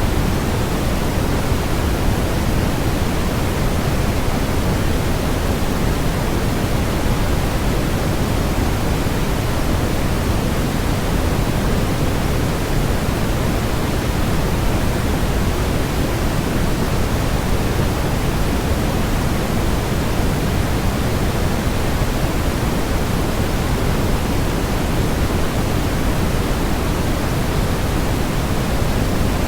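Generated white noise: a steady, unchanging hiss, fuller in the low end than at the top.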